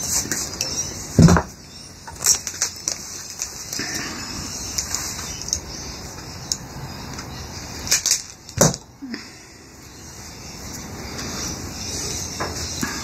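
Rustling and handling noise of hands working among a pinball machine's wire bundles and switch stacks, with a sharp knock about a second in and another near nine seconds.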